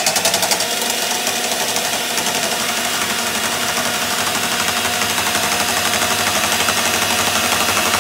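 Electric hand mixer running steadily, its twin wire beaters whipping runny egg whites in a stainless steel bowl, beating them toward a foam.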